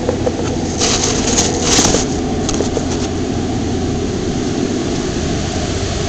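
Steady, loud mechanical rumble of machinery running, with a few brief hissing bursts about one to two seconds in.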